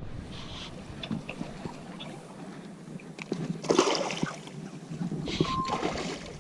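Wind and water noise on a small fishing boat, with scattered light clicks and knocks, louder swells of noise around four and five seconds in, and one short beep at about five and a half seconds.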